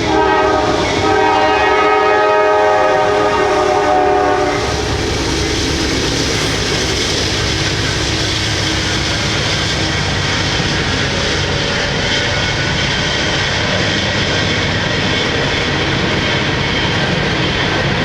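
Horn of a Norfolk Southern GE C40-9W diesel locomotive sounding as the train approaches, cutting off about four and a half seconds in. After that comes the steady rumble of the locomotives and the wheels of empty coal hoppers rolling past.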